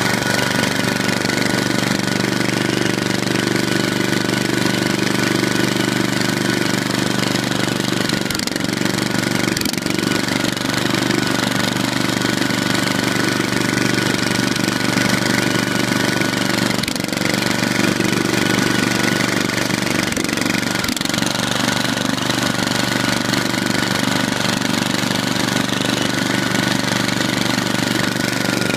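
Riding lawn tractor's engine running steadily as it drives along, with a few brief breaks in its even note.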